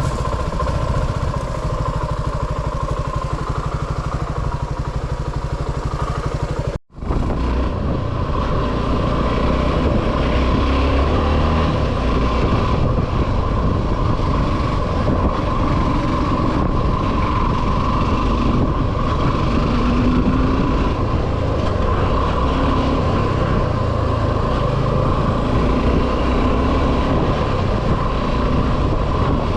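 Suzuki V-Strom 250 SX single-cylinder engine running steadily under way on the road. The sound drops out for a split second about seven seconds in, then carries on.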